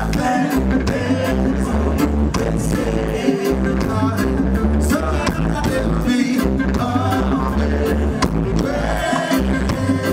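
Live reggae band in concert: a male vocalist singing into a microphone over electric guitar, drum kit and strong bass notes with a regular drum beat.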